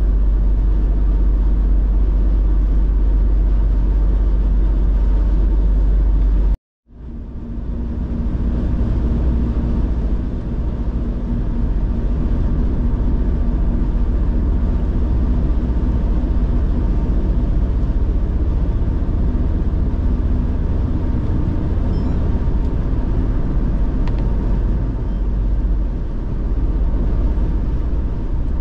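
Steady low rumble of a car driving at road speed, tyre and engine noise. About six and a half seconds in, the sound cuts out completely for a moment and fades back in.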